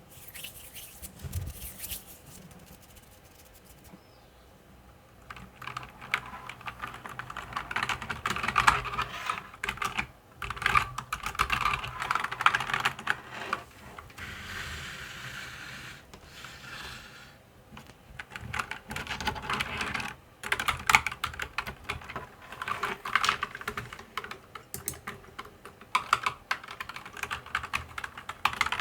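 Typing on a mechanical keyboard: dense runs of rapid key clicks in bursts, with short pauses between them. It is quiet for the first few seconds apart from one soft thump.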